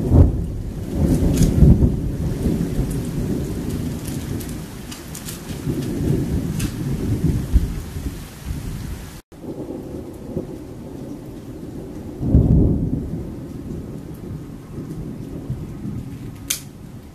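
Thunder from a strong thunderstorm: a sudden loud clap right at the start rolls into a long low rumble, and a second rumble swells about twelve seconds in after a brief break in the sound. Rain falls throughout, with scattered drop ticks.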